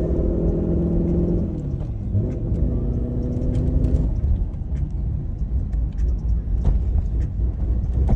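Chevrolet Corvette C7 Grand Sport's 6.2-litre V8 running on the road, an engine with a cylinder 7 misfire. The engine note holds a steady pitch, drops about a second and a half in, holds again until about four seconds in, then gives way to a rougher low rumble.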